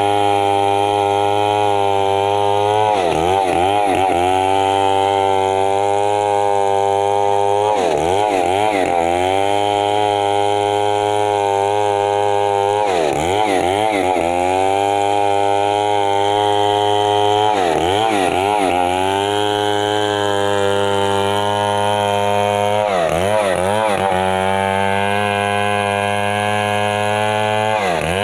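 Stihl MS 070 chainsaw's big two-stroke engine running loud at high revs, its pitch dipping briefly and recovering about every five seconds, as the saw cuts through wood.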